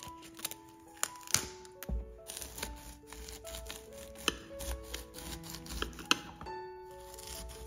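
Kitchen knife cutting through a raw cauliflower head on a plastic cutting board: a run of crisp crunches and snaps as the blade works through the stalk and florets. Piano background music plays underneath.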